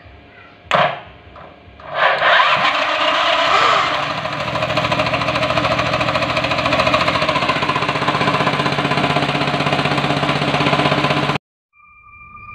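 Small petrol engine driving an air compressor, started by a chain-driven electric starter motor. There is a short burst of cranking about a second in, then the engine catches about two seconds in and runs steadily until it cuts off abruptly near the end. A steady two-tone electronic beep follows.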